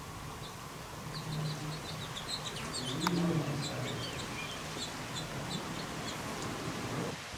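Small birds chirping: a busy run of short, high chirps over steady outdoor background noise.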